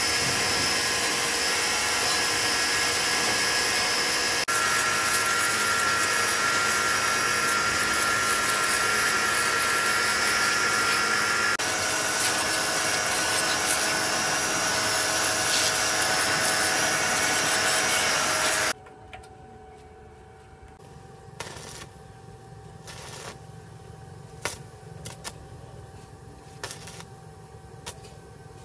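A power tool running steadily with a loud, even noise, cutting off suddenly about two-thirds of the way through. After it stops, a faint steady hum and scattered light clicks and taps remain.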